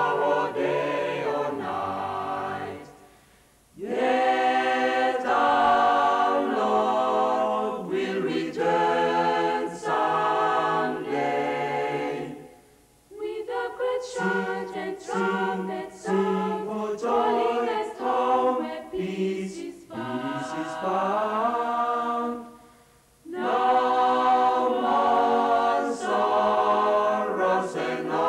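Mixed choir of men and women singing a gospel song in Bislama in harmony, in long phrases broken by three short pauses.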